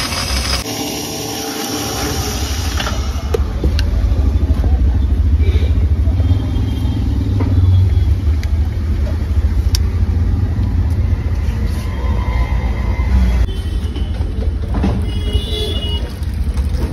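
Steady low rumble of outdoor street background noise, with a few light clicks.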